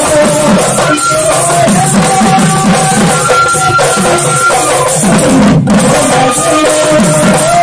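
Bihu husori music: several dhol drums beating together in a quick rhythm, under a melody in long held notes.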